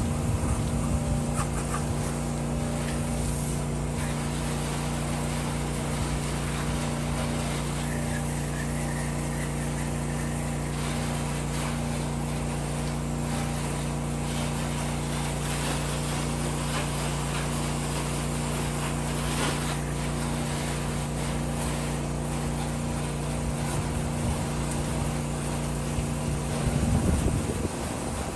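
A pressure washer's engine runs at a steady, unchanging hum, then cuts off about 27 seconds in amid a brief louder rustle.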